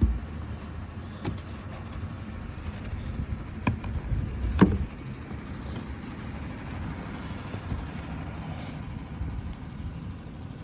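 A motor vehicle running with a steady low rumble, with two short knocks about four seconds in.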